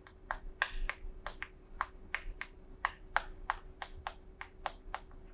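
Chalk writing on a chalkboard: a quick run of short sharp taps and scratches, about four a second, as each stroke of handwritten characters hits the board.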